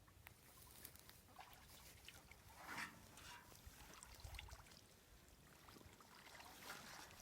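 Faint sloshing and trickling of shallow water, with a slightly louder splash nearly three seconds in.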